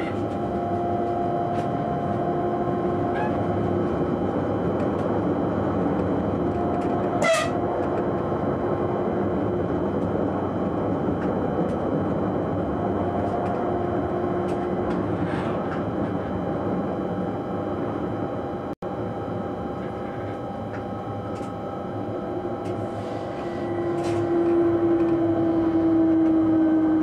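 Electric train heard from the driver's cab while running: steady wheel-on-rail rumble with the hum of the traction motors at a few steady pitches. A brief sharp sound about seven seconds in. Near the end a motor tone grows louder and slides down in pitch as the train slows for a station.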